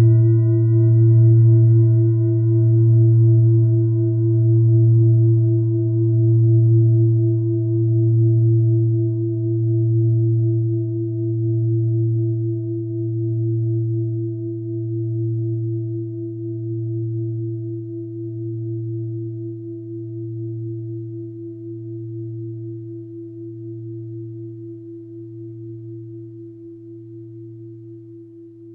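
A mindfulness bell struck once, then ringing on with a low hum and a clear higher tone. The ring wavers in slow pulses about every two seconds and fades gradually.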